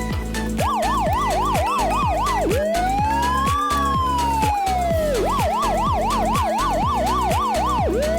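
An electronic siren alternating between a fast yelp and a slow wail: about four quick rises and falls a second, then one long rise and fall lasting nearly three seconds, then the fast yelp again. It plays over background music with a steady kick-drum beat.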